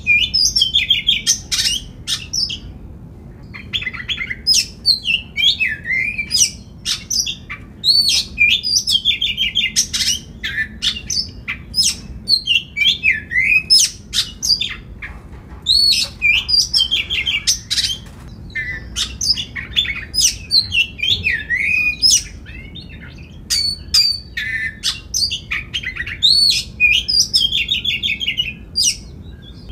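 Oriental magpie-robin singing in full: a loud, varied stream of whistles, fast chattering runs and swooping notes, delivered in phrases with short pauses between them.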